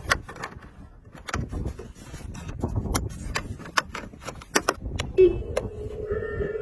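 Small RC drift car running, with many sharp irregular clicks and knocks over a low rumble. About five seconds in, a steady held tone comes in.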